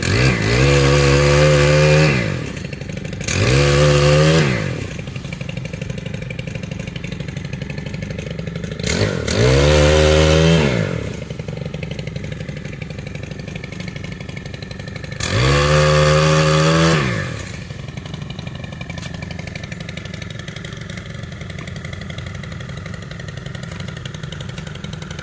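Small gas engine of a tree-trimming tool idling, just started after sitting unused for about a year, with the throttle revved four times, each rev rising and falling over a second or two, and steady idling in between.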